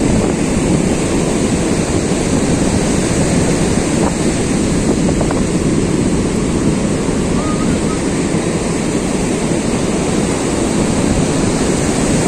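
Wind buffeting the microphone over the steady rush of sea surf.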